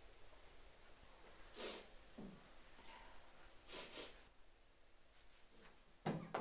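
A girl crying quietly: short sniffles and shaky breaths every second or two, with a louder pair near the end.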